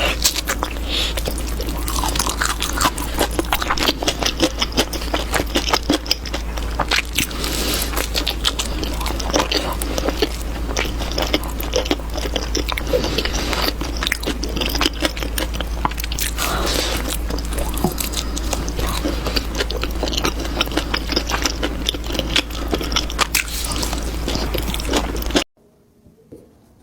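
A person eating close to the microphone, biting and chewing with a dense run of irregular mouth clicks and smacks over a steady low hum. It cuts off suddenly near the end.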